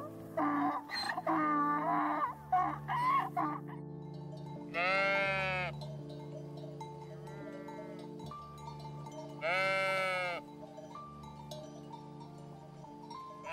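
Sheep bleating, two long bleats about five and ten seconds in with a fainter one between, over steady background music. The first few seconds hold a run of short, wavering animal calls.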